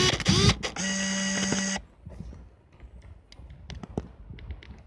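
Canon Autoboy Epo 35mm compact film camera firing a frame. A short burst of shutter and lens-mechanism clicks and rising motor whirs is followed by about a second of steady motor whir as the film winds on, which stops abruptly.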